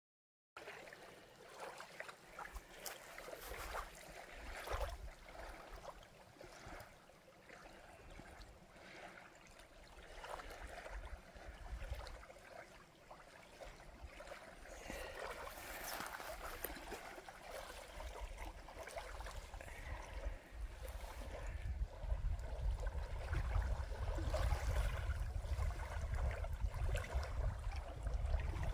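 Small waves lapping and trickling at the sandy edge of Lake Superior, an irregular soft splashing. A low rumble builds and grows louder over the last third.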